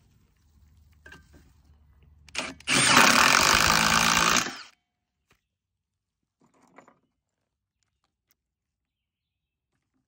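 Milwaukee cordless impact driver driving a 5/16 by 2 inch lag screw into a wooden post through a steel bracket. It gives a brief spurt, then runs loudly for about two seconds and stops suddenly as the screw seats.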